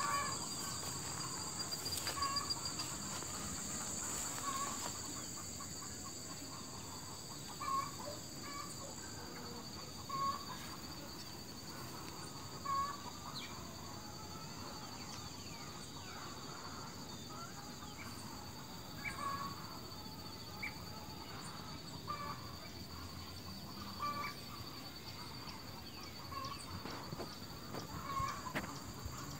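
Insects droning steadily in a high, even pitch, with a bird giving short calls every two to three seconds, with a pause of several seconds partway through.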